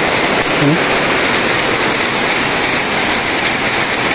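Heavy rain falling, a loud, steady, even hiss.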